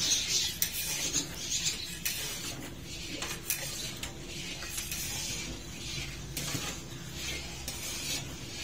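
Long metal ladle stirring boiling milk in a large iron karahi, scraping and clinking against the pan now and then over a steady hiss.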